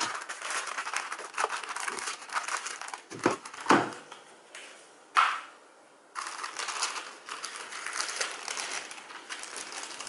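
Tissue wrapping paper crinkling and rustling as hands peel its sticker seal and unfold it. There are a few louder rustles about three to four seconds in and again at five seconds, then a short, quieter pause before the crinkling resumes.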